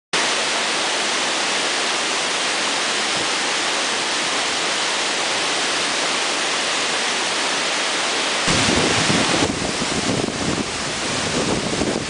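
Steady rushing hiss of falling water from a waterfall. About eight and a half seconds in it cuts to a louder, deeper, uneven roar from right at the foot of a 35-metre waterfall, with spray and wind buffeting the microphone.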